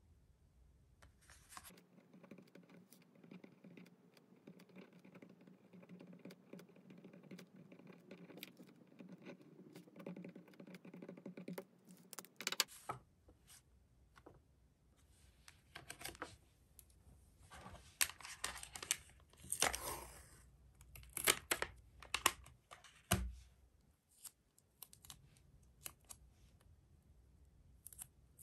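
Paper memo cards and cardboard handled by hand: a run of soft, dense scratching for about ten seconds, then scattered sharp clicks and crinkles of card being picked up, shuffled and tapped by fingernails.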